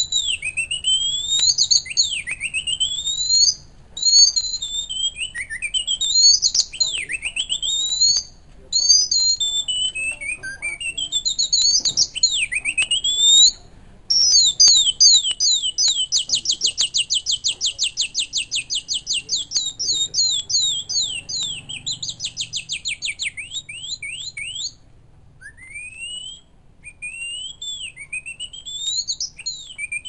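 Bamboo bird-call whistle blown by mouth, imitating a songbird: high whistled notes sweeping up and down in short phrases with brief pauses. About halfway through it breaks into a long, fast trill of rapid repeated notes, then thins out to a few scattered sweeps near the end.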